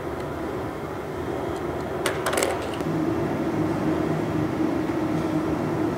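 Steady mechanical hum, with a short cluster of sharp clicks and scratches about two seconds in as a pointed tool works vinyl wrap film down over a screw head on an aircraft panel.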